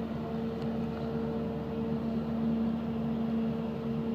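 Fast ferry Ramon Llull's four engines ("turbinas") running as a steady drone with a constant low hum.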